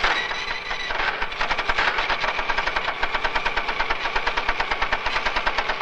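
Computer line printer printing out a world-model run on fan-fold tractor-feed paper: a rapid, even mechanical clatter of print strokes that keeps going without a break.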